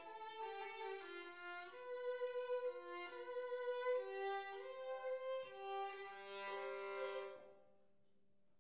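A violin played solo: a slow melodic line of held notes, each sliding into the next, that stops about seven and a half seconds in.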